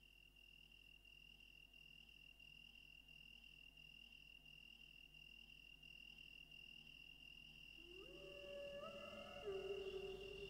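Crickets chirping in a steady high pulsing trill, fading in. About eight seconds in, wolf howls begin: long calls that rise in pitch and then hold, with a second howl overlapping near the end.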